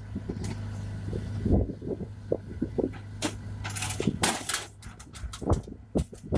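A string of irregular metallic clinks and knocks over a steady low hum.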